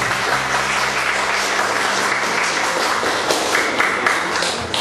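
Congregation applauding, a dense patter of many hands clapping that fades out near the end.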